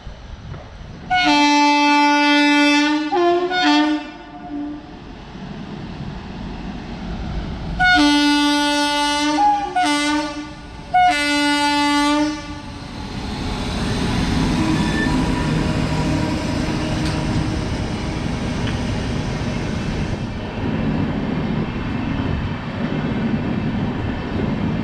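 WAP7 electric locomotive's horn sounding in two groups of blasts: a long blast and a short one, then after a pause a long, a short and another long blast. The train then rolls slowly past with a steady rumble and clatter of wheels on rail, crawling under a caution order.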